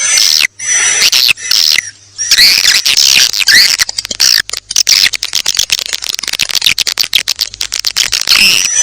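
Recorded swiftlet calls played as a lure: rapid, dense high-pitched twittering chirps, coming in short bursts with brief gaps at first, then a near-continuous chatter, with a short steady high whistle note recurring. This is a calling sound meant to attract swiftlets to a new swiftlet house.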